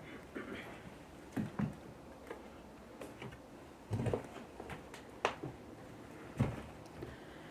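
Footsteps and knocks of someone moving over a damaged floor strewn with debris: scattered, irregular clicks and thumps, the heaviest about four and six and a half seconds in.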